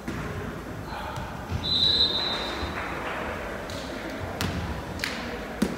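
Referee's whistle blown once for about a second, a shrill steady tone, followed by three sharp knocks about half a second apart: a volleyball bouncing on the hardwood gym floor.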